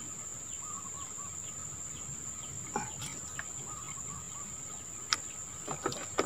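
Riverbank ambience: a steady high-pitched insect drone, typical of crickets or cicadas, with faint bird calls early on. A few light clicks come about three and five seconds in as a caught prawn is handled in the boat.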